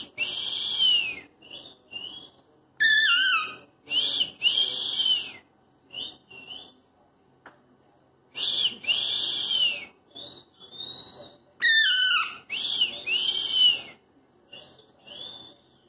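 Alexandrine parakeet calling: five loud, harsh whistle-screeches about a second long each, with quick falling notes between some of them and softer short rising whistles in the gaps.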